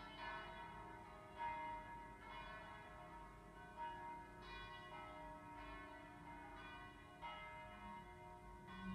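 Orthodox church bells being rung, several bells struck at uneven intervals every one to three seconds. Each note rings on beneath the next, so the strikes overlap into a continuous peal.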